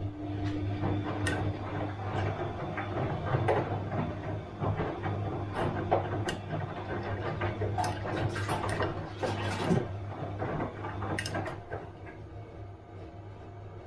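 Bosch washing machine running: a steady low motor hum under a busy, irregular clatter of clicks and knocks as the drum turns, which eases off near the end.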